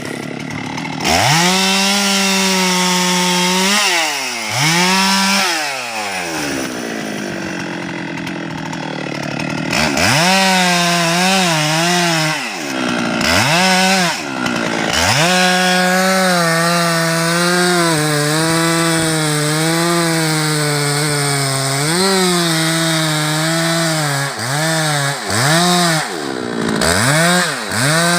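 Husqvarna 390 XP two-stroke chainsaw revved to full throttle, dropping back to low revs between about four and ten seconds in. From then on it stays at high revs with the pitch sagging and recovering, as when it cuts through timber under load, and there are a few quick throttle blips near the end.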